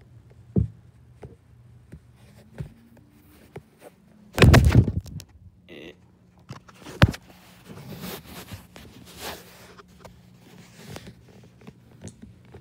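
Knocks and handling noise from a phone being moved about indoors. There is a sharp knock under a second in, one loud heavy thud about four and a half seconds in, a sharp click about seven seconds in, then lighter rustling.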